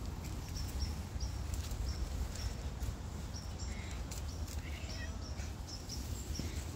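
Footsteps on a dirt path strewn with dry fallen leaves over a low rumble, while a small bird chirps repeatedly in the background with short high notes about twice a second.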